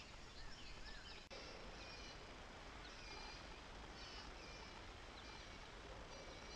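Faint birdsong: short, high chirps repeated about once a second over a steady outdoor background hiss. The sound drops out briefly about a second in.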